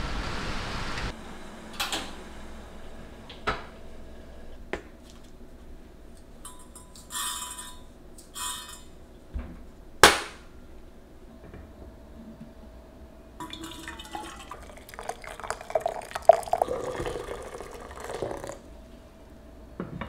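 Rain falling, cut off about a second in. Then kitchen handling sounds: scattered clinks and clicks of a metal spoon and glassware, the loudest a single sharp clink of the spoon against a glass, and near the end a busier stretch of clattering and liquid being poured.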